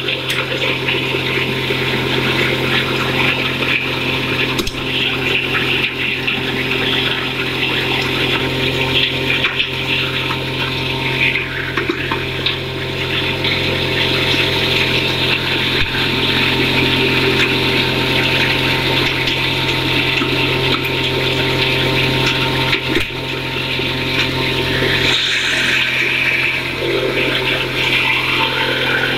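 9ZF-400 integrated feed grinder running steadily as dried corn kernels feed from its hopper and are crushed. The sound is a constant motor hum under a dense rushing rattle of grain.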